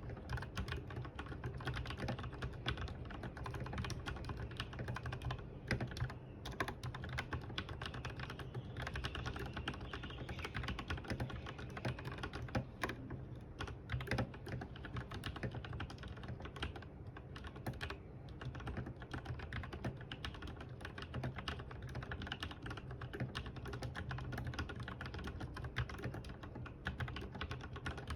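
Steady, fast typing on a Logitech G Pro X mechanical keyboard fitted with lubed linear red switches, the keystrokes following one another closely and without a break.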